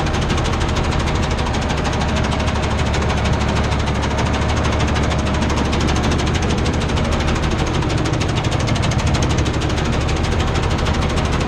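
Tractor diesel engine running steadily under load, heard from inside the cab, with a fast, even firing beat and a strong low rumble.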